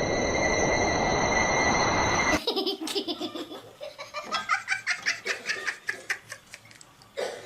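Rapid, repeated bursts of high-pitched laughter, starting about two and a half seconds in. It follows a loud, noisy stretch with steady high tones that cuts off abruptly.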